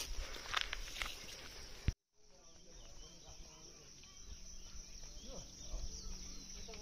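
Footsteps on a stone trail for about two seconds, then a sudden cut to quieter outdoor ambience with a steady high insect buzz.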